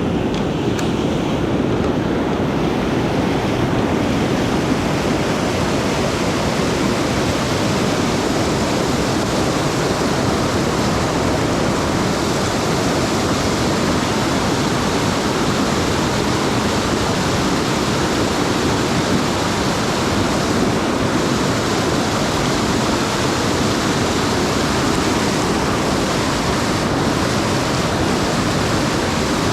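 Mountain stream rushing steadily, swollen with rainwater.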